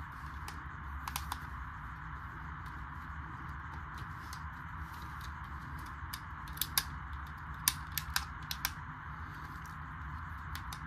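Scattered sharp plastic clicks and snaps as the parts of a large Bakugan Dragonoid toy figure are worked by hand, over a steady low hiss. The figure is being moved manually because its battery-powered opening does not run, which the owner puts down to dead batteries.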